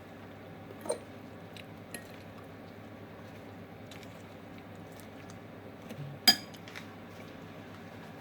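A few scattered clinks of dishes and utensils, the sharpest about six seconds in, over a steady background hum.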